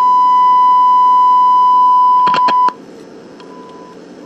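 A steady pure test tone from a signal generator's modulation, coming through the Viscount tube radio's audio while a signal is injected into its FM IF stage. A few crackling contact clicks from the probe sound near the middle, and the tone cuts off suddenly about two and a half seconds in.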